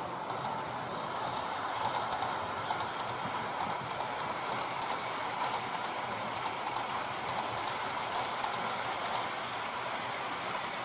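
H0-scale model train running on the layout: a steady whir with many small, irregular clicks as the wheels pass over rail joints.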